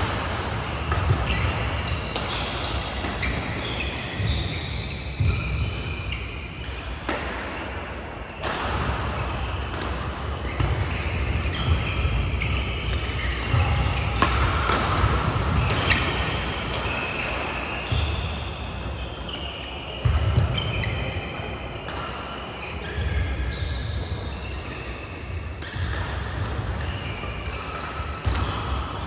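Badminton play on court mats: sharp cracks of rackets striking the shuttlecock, shoes squeaking in short high chirps, and thuds of footwork, with several courts going at once.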